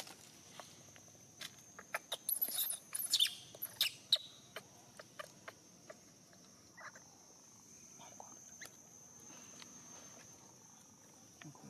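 Newborn long-tailed macaque squeaking and crying in short high bursts, densest about two to four seconds in, among scattered small clicks, with a thin steady high tone underneath.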